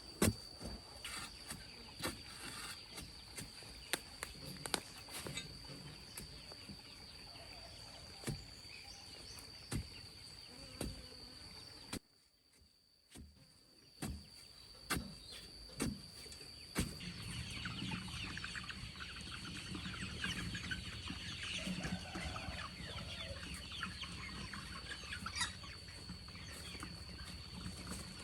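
A flock of chickens clucking, busier in the second half, with scattered sharp clicks and taps and a steady high-pitched whine underneath.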